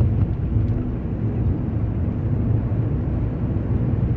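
Steady in-cabin driving noise of a car on a wet highway: a low rumble of engine and tyres with a haze of tyre noise from the wet road surface.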